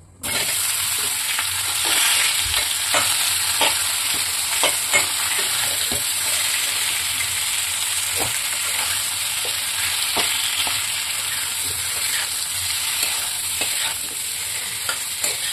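Taro root (arbi) pieces hitting hot oil in a kadhai with a sudden sizzle, then frying steadily with a constant hiss. A metal spatula scrapes and knocks against the pan as the pieces are stirred, giving many short clicks.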